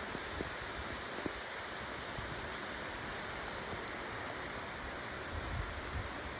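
Steady rain falling, an even hiss with a few faint drops ticking, and a soft low rumble near the end.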